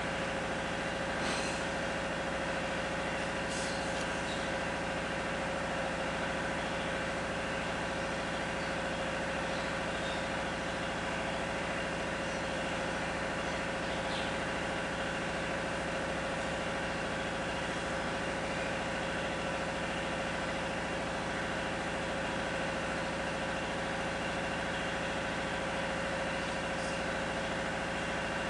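A steady machine hum, unchanging throughout, with a few faint clicks over it.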